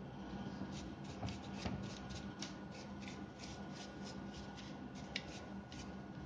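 Handling noise from a Bosch GBH 2-26 rotary hammer's plastic housing, cord and switch assembly being moved about and set down on a wooden workbench. It is a run of irregular light clicks and rubbing, with a few sharper clicks, over a steady low hum.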